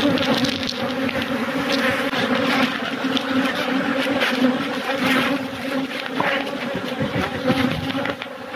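A dense mass of honeybees buzzing close up, a steady droning hum, as the colony's brood comb is cut free and lifted out. Short crackles and rustles are scattered through it.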